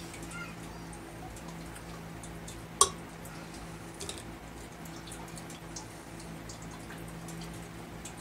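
Light clicks and taps of clear PVC pipe and plastic fittings being handled, with one sharp click about three seconds in and a smaller one a second later, over a steady hum.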